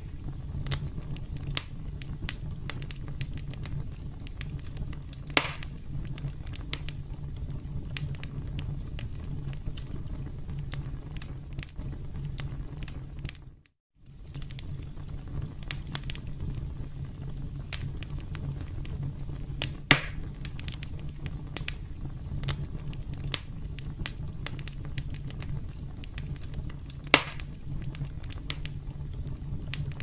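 Wood fire crackling: a steady low rumble of flames under constant small clicks and snaps, with a few louder pops. The sound dips out briefly about halfway through, then resumes.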